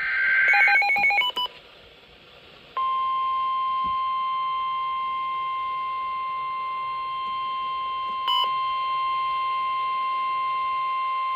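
NOAA Weather Radio alert for a flash flood warning: the tail of the SAME header's data bursts and a quick run of stepped beeps, then, about three seconds in, the steady 1050 Hz warning alarm tone, held for about nine seconds.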